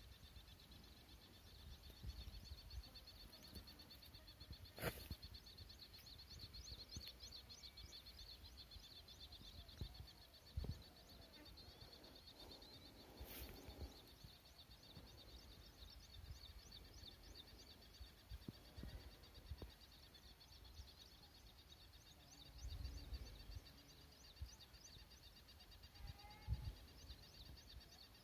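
Faint, steady high-pitched chirring of insects, a fast even pulsing trill, with low rumbles now and then and two sharp clicks, about five and thirteen seconds in.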